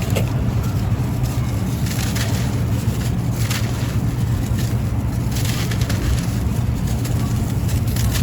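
Dry, crumbly sand-cement being crushed, giving a few crisp crunches a second or two apart over a steady low rumble.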